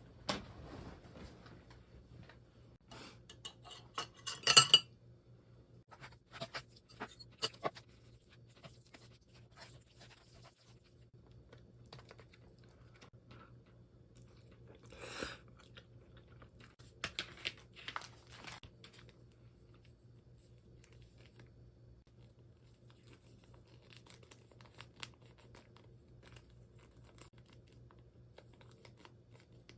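Kitchen handling sounds: scattered clinks, taps and rustles of dishes, cutlery and packaging, loudest about four and a half seconds in, with a short rustle near the middle, over a steady low hum.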